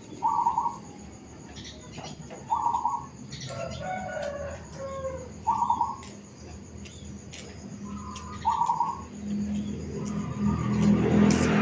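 Zebra dove (perkutut) cooing: five short trilled coos, about one every three seconds, with smaller birds chirping thinly in the background. From about nine seconds in, a low engine-like hum grows louder.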